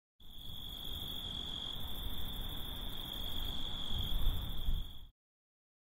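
Night insects, crickets, trilling in one steady high unbroken tone over a low rumbling noise. Both stop suddenly about five seconds in.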